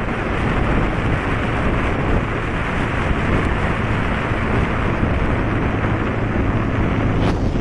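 Wind rushing over the microphone of a vehicle driving along a highway, mixed with steady road and engine noise, with a short swish near the end.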